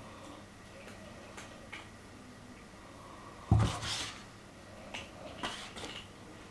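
A kitten pouncing at the wall: one loud thump as it lands against the wall about three and a half seconds in, followed by scrabbling, then a few lighter taps and scuffs.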